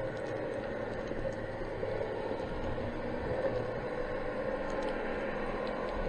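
Steady muffled underwater noise picked up by a camera in its waterproof housing, with a few faint scattered clicks.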